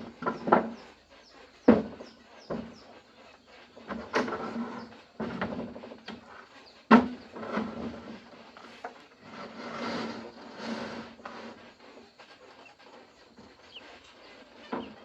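A string of irregular wooden knocks and clatters, several in the first few seconds and a loud one about seven seconds in, with stretches of scraping and rustling between.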